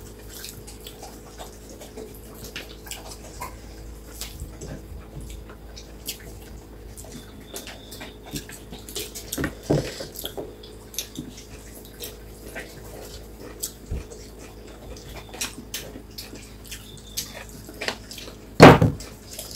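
Close-miked eating sounds: wet chewing, lip smacking and fingers squishing rice, heard as many small clicks. A louder slurp near the end as broth is drunk from a bowl.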